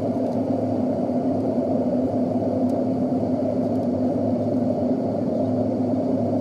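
Steady airliner cabin noise inside a Boeing 737 on its landing approach: the jet engines and the rush of air over the fuselage make a low, even roar with a steady hum in it.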